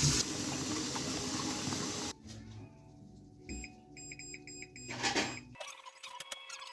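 Tap water running into a pot, cut off sharply about two seconds in, then a quick run of short electronic beeps from a kitchen appliance.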